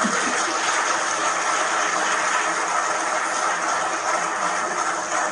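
Steady, even hissing noise with no rhythm or pitch, holding the same level throughout.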